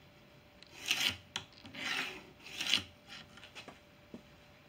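Pencil drawn along the edge of a steel square across a white-faced plywood board, marking a line: three strokes about a second apart.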